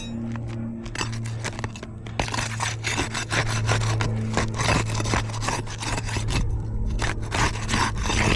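Steel flat bar scraping and prying under asphalt roof shingles, a dense run of rapid rough strokes, mostly from about two seconds in, as the shingle seals are broken loose. A steady low hum runs underneath.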